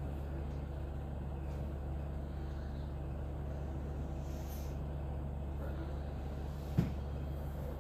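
A steady low background hum with no speech, broken by one short knock a little before the end.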